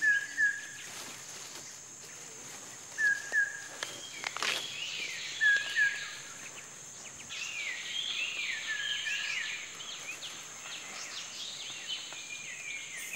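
Tropical forest ambience: a steady high-pitched insect drone. Over it, a bird calls short paired notes three times, and later sings a run of warbling notes.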